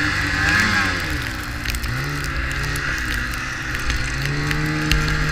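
Snowmobile engine running under way. Its pitch dips about a second in, climbs back, and then holds steady, all over a continuous hiss.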